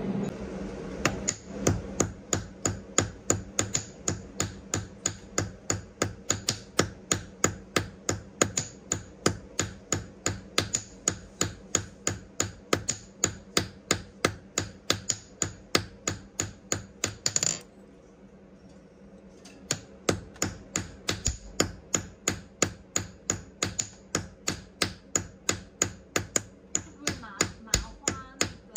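A hammer striking a gold bar on a steel anvil block, flattening it into a strip. The blows are sharp and ringing, about two or three a second, and stop for about two seconds just past halfway before starting again.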